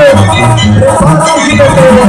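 Live band playing Latin American music, with a stepping bass line under a held melody.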